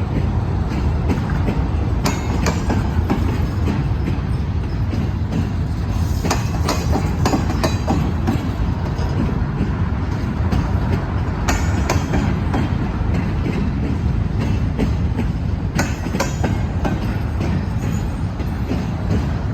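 CSX freight train cars rolling past with a steady low rumble, steel wheels clicking and clanking over the rail joints.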